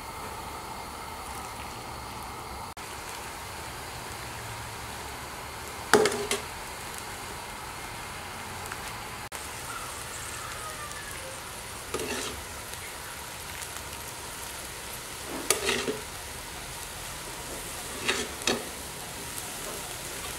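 Hot sauce being ladled over a tray of fish, with a faint steady sizzle and a few sharp clinks of a metal ladle against the pot, the loudest about six seconds in.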